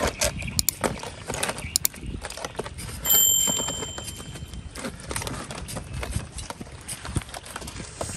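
Hands working a chili marinade into a raw duck: wet squishing, slapping and crackling handling sounds with many small clicks. A clear high ringing tone starts suddenly about three seconds in and fades after a second and a half.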